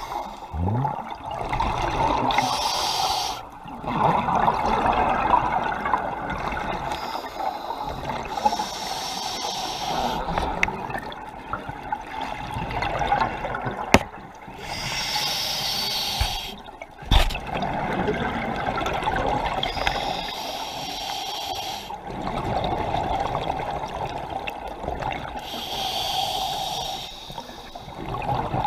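Scuba diver breathing through a regulator underwater: hissing breaths come every several seconds between stretches of bubbling exhaust. Two sharp knocks land about halfway through.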